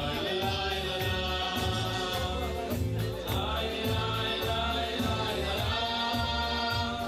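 Festive music with a group of voices singing over a steady bass beat.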